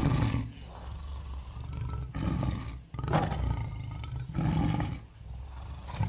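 Tiger roars, a series of short, deep roars with brief quiet gaps between them.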